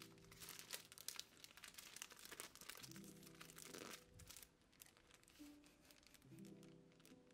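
Faint crinkling of a clear plastic sticker sleeve being handled, over soft lo-fi background music with a held chord about every three seconds.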